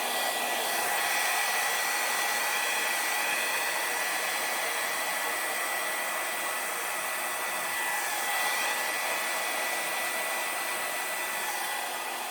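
Small handheld hair dryer running steadily, blowing wet acrylic paint outward across a canvas: a constant rush of air with a thin, steady high whine.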